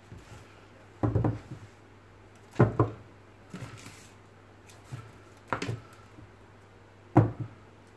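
Several sharp knocks on a wooden desktop, irregularly spaced a second or more apart, some coming in quick pairs.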